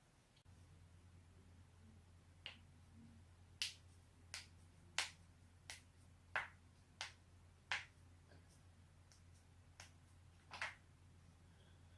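Knee joints cracking: about ten sharp, separate pops at irregular intervals, roughly one every half second to a second, over a faint low hum.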